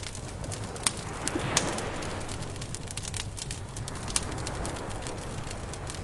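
Campfire crackling and popping, with sharp snaps about one and one and a half seconds in, over a low steady rumble and a rushing hush that swells and fades twice.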